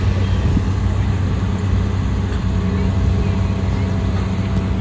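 Engines of large farm machinery, harvesters and tractors, running steadily with a continuous low hum.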